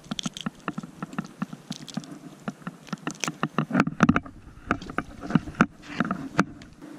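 Rapid, irregular clicks, taps and rustles of hands handling a small mackerel and fishing tackle right next to a chest-mounted camera.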